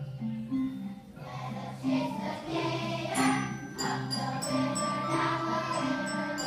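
Children's ensemble playing Orff-style wooden xylophones in a repeating low pattern, with young children singing along from about a second in. High tinkling percussion joins about three seconds in.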